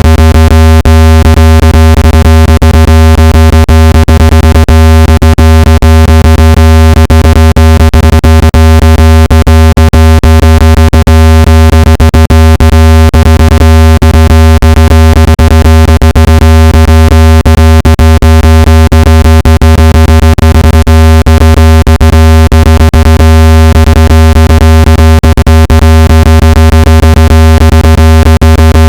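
Synthetic water-eject tone for clearing water from a phone or earbud speaker: a steady, very loud low buzz with many overtones, broken by frequent brief clicks.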